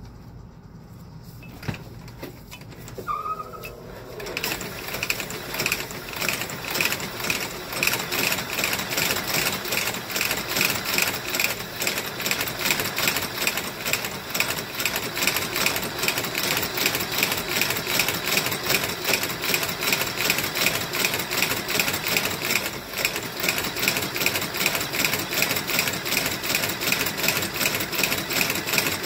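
Outsole stitching machine sewing a boot's new sole to its welt. It starts up about four seconds in and then runs with a fast, even stitch-by-stitch rhythm; before that there is a single click and a brief squeak.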